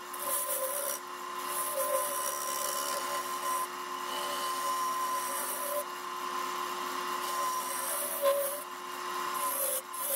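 Harbor Freight wood lathe running with a steady whine while a carbide turning tool cuts dense mesquite. The cutting makes a rough scraping hiss that swells and drops with each pass of the tool.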